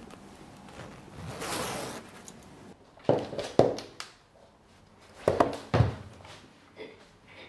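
A hoodie's zipper drawn up once, about a second and a half in. It is followed by two pairs of short knocks: one pair about three seconds in and another about five seconds in.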